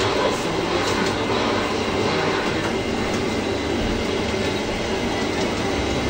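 G-scale model railcar pulling a coach along the layout's track: a steady running noise of the wheels on the rails.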